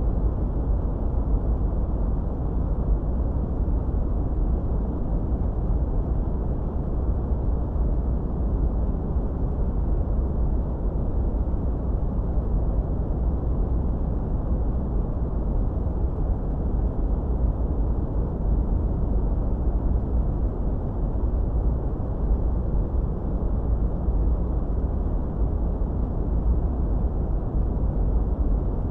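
Steady, unchanging noise track sold as white noise, weighted to the low end: a deep, dull rumble with little high hiss.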